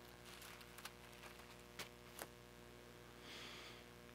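Near silence over a steady electrical hum, with a few faint ticks and a brief soft rustle of Bible pages being turned about three seconds in.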